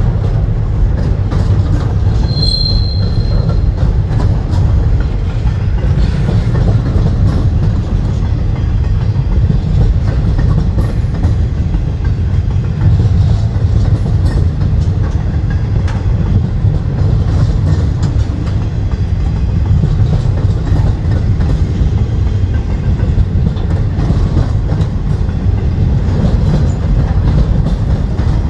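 CSX freight train of double-stack container well cars rolling past: a steady heavy rumble of wheels on the rails, with one short high-pitched wheel squeal about two seconds in.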